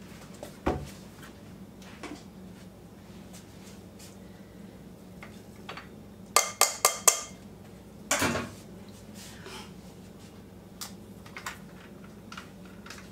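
Dishware clinking as squeezed-out spinach is knocked off a dish into a mixing bowl: a single knock near the start, a quick run of four sharp taps about six seconds in, then a short scrape.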